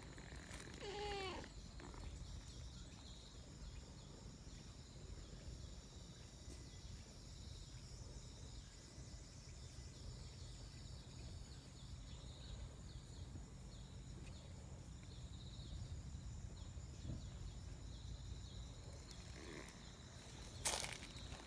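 A cat gives one short meow about a second in. The rest is a low steady outdoor rumble with a faint high hum, and a brief loud rustle near the end.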